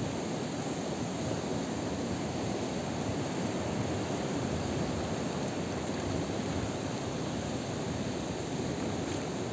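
Steady rushing water noise, even and unbroken, with no distinct events.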